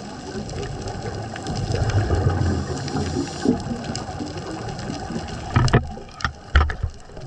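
Underwater sound recorded on a scuba dive: a steady hum and rumble with bubbling that swells about two to three seconds in. Several sharp knocks follow near the end.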